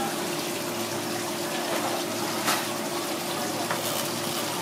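Tap water running steadily from a flexible-hose faucet and splashing onto a spiny lobster and a cutting board as the lobster is rinsed.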